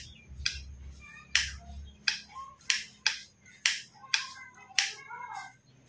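Sharp clicks, about eight at an uneven pace, from the metal receiver of a PCP air rifle being turned and worked by hand.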